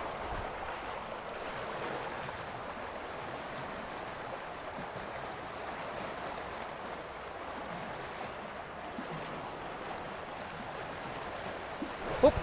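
Steady rushing of a swift, flood-swollen river current.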